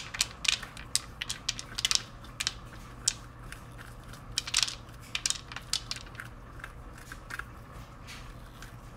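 A spoon scraping seeds and stringy pulp out of a halved raw butternut squash: a run of short, irregular scrapes and crackles.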